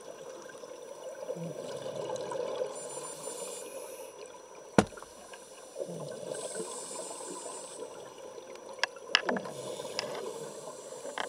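Scuba diver breathing through a regulator underwater: a hiss with each inhalation every few seconds, and bubbling rushes of exhaled air between them. A sharp click about five seconds in, and a few smaller clicks about nine seconds in.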